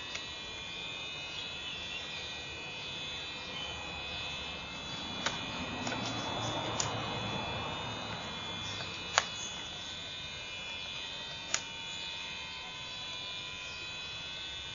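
A steady high-pitched buzz of several fixed tones, with a few sharp clicks and a brief swell of rustling noise about halfway through.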